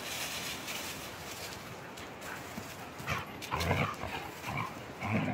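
A husky and a small white dog play-fighting, with a few short dog vocal sounds clustered in the second half.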